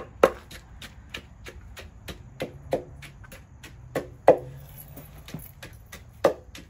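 Wooden pestle pounding a moist mixture in a large mortar: a steady run of thuds at about four strokes a second, with a few harder blows.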